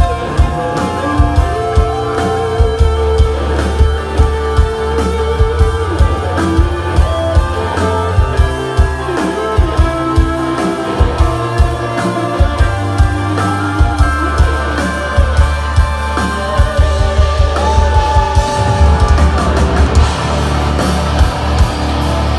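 Live melodic death metal band playing: melodic guitar lines over bass and steady, hard-hit drums, heard through the room from the crowd.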